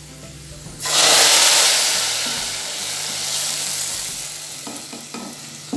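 Hot tempering oil (baghar) with fried onions and cumin is poured onto a pot of cooked chana daal. It sets off a sudden loud sizzle about a second in that slowly dies away over the next few seconds.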